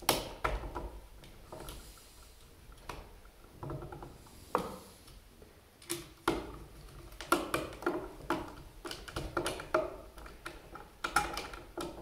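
Screwdriver and wire handling on a 20 amp GFCI outlet: scattered light clicks and scrapes as 12 gauge wires are attached to its terminal screws and tightened, coming more often in the second half.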